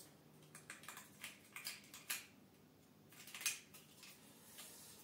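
Faint, scattered clicks and taps of hands handling a manual 35 mm film camera, with one sharper click about three and a half seconds in.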